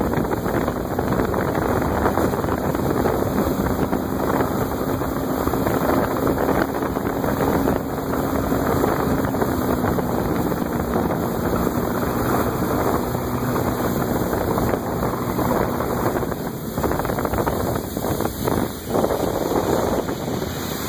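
Boat under way on choppy water: wind buffets the microphone over a steady rush of wind and water, with a faint motor hum underneath. The rush turns gustier and uneven near the end.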